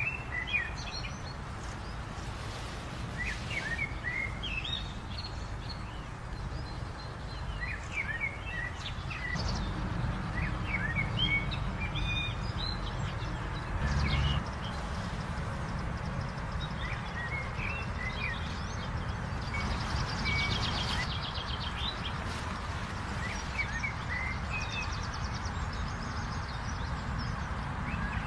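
Small songbirds singing short chirping phrases every few seconds, with a buzzy, rattling phrase about twenty seconds in, over a steady low rumble of background noise.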